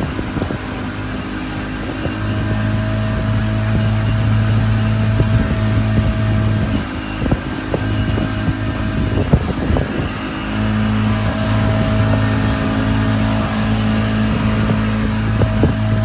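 Boat engine running steadily, with a low hum over the rush of water and wind flapping on the microphone. The engine hum fades for a few seconds midway, then comes back.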